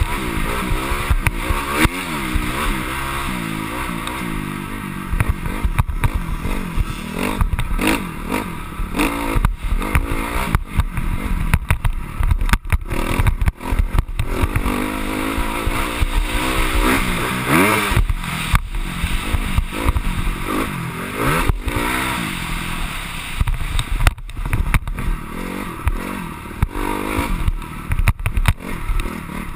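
Honda CRF250R's single-cylinder four-stroke engine revving up and down continually as the dirt bike is ridden hard, with clatter and knocks as it goes over bumps.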